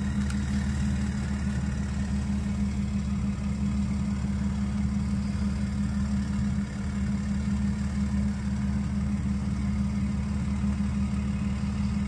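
Truck engine idling steadily: an even, unchanging low drone.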